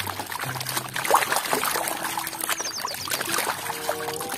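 Muddy, foamy water sloshing and splashing in a plastic basin, and pouring off a plastic toy water gun as it is lifted out.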